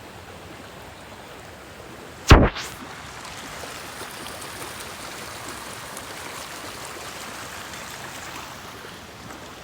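Steady rushing of running water, like a stream. A single sudden loud thump comes about two seconds in.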